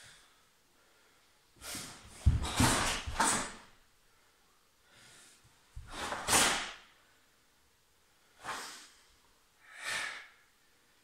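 Swishing and snapping of a karate gi with quick kata techniques, and bare feet thudding and sliding on a wooden floor, in about six separate bursts. The loudest cluster, with heavy thuds, comes two to three seconds in, and another loud burst comes about six seconds in.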